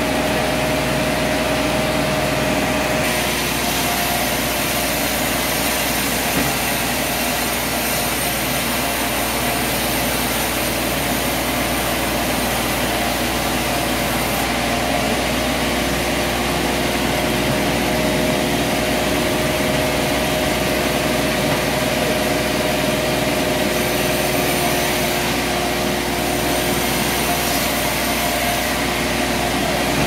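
Large vertical band sawmill running: a steady mechanical drone with a few held hum tones, while timber on the carriage is pushed through the blade.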